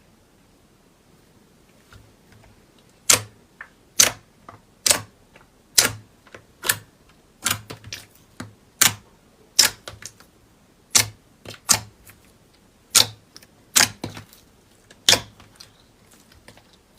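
Slime being pressed and squeezed by hand, giving sharp crunchy clicks and pops about once a second, some in quick pairs, starting about three seconds in.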